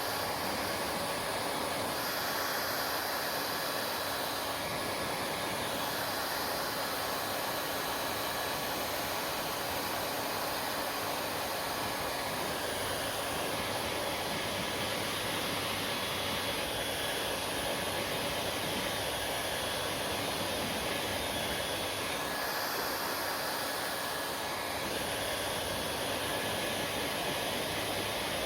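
Hair dryer blowing steadily, an even rush of air with a faint motor whine underneath; its tone shifts slightly a few times.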